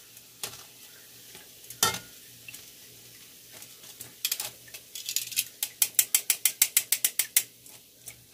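Metal tongs and a wire mesh strainer clicking against a stainless steel frying pan as fried fishballs are lifted out of the oil: a few separate clicks, then about halfway through a run of quick, even clicks, about six a second, that stops shortly before the end.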